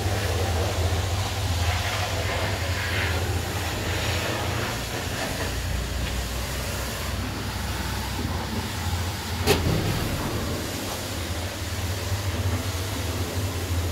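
Engine of a Bomag BW 65H walk-behind double-drum roller idling with a steady low hum, with one sharp click about nine and a half seconds in.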